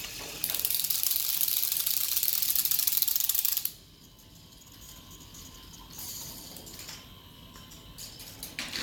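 Loud, rapid clicking from the spring-driven wind-up motors in a K'nex lift transmission as they max out and click through their springs under a jam. This is the built-in slip protection that spares the gears. The clicking stops suddenly about three and a half seconds in, leaving a much quieter mechanism sound as the computer-controlled drive shuts down and reverses.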